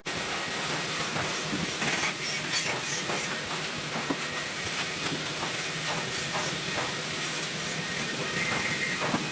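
Fiber laser welding workstation at work: a steady hiss with scattered faint clicks and crackles.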